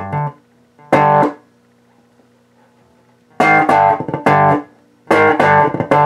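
Electric bass (Warwick Rockbass) played through an amp, strumming power chords. A short strum comes about a second in, then a pause of about two seconds, then two quick groups of strummed chords, the last ringing on at the end.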